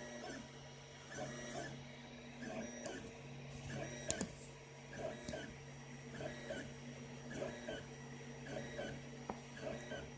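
FDM 3D printer printing its first layer: the stepper motors give short whirring chirps, about one or two a second, as the print head moves back and forth over a steady hum. A single sharp click about four seconds in.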